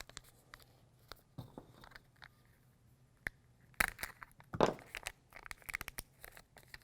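Small package of replacement spring cages being handled and opened, crinkling and rustling in short, scattered bursts with a few light clicks, busiest in the second half.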